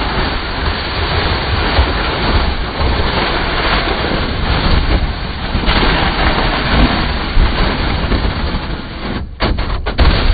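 Plastic sled being towed fast over snow: a loud, continuous scraping hiss from the sled bottom with heavy rumbling buffeting at the microphone. A few sharp knocks come near the end as the sled jolts.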